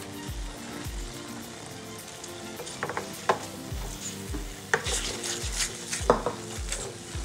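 A silicone spatula stirring and scraping a thick spinach, corn and cheese mixture as it cooks in a steel pan, with a few sharper scrapes against the pan about three, five and six seconds in.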